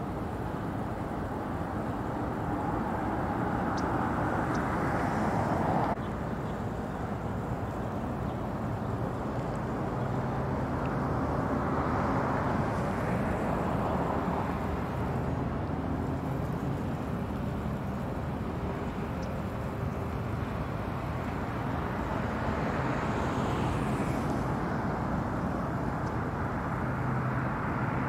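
Steady outdoor background noise of distant road traffic, swelling and fading as vehicles pass. The level drops abruptly about six seconds in.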